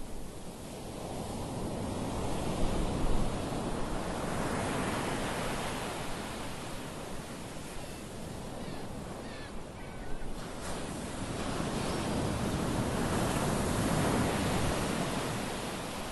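Ocean surf breaking: a steady rush of whitewater that swells, eases off and swells again.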